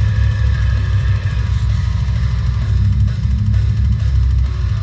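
Heavy metal music played loud over a vehicle's stereo, with pounding drums and distorted guitars over a heavy, bass-laden low end.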